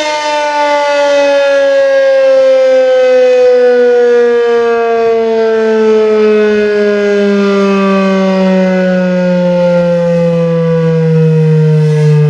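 Federal Signal 2001-SRN 12-port rotating outdoor warning siren winding down, its loud tone gliding slowly and steadily lower as the rotor loses speed.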